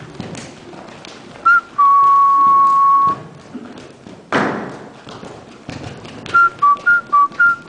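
A person whistling: a short high note, then one long held note, and near the end a run of short notes hopping between two pitches. Underneath, the muffled hoofbeats of a horse moving on arena sand, with a loud brief thud about four seconds in.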